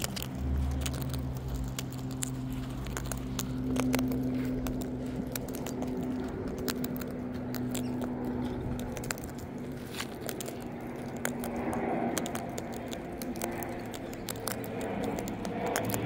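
Sulphur-crested cockatoo feeding from a tray of sunflower seeds and dried fruit: a constant run of small clicks and crackles as its beak cracks husks and rummages through the seed. Under it runs the steady low drone of an aeroplane overhead.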